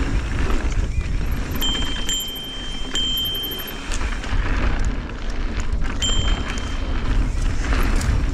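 Mountain bike rolling fast down a dry dirt singletrack, heard through the rider's action-camera microphone: heavy wind buffeting, the tyres running over the dirt, and scattered knocks and rattles from the bike. A thin high whine comes in twice, briefly.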